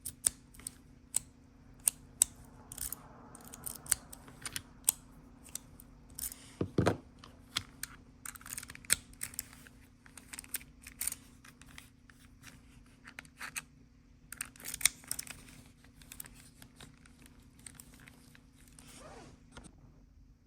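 Small metal parts of an automotive ignition lock being handled and worked on a bench: irregular sharp clicks and short scraping noises, with a duller knock about seven seconds in.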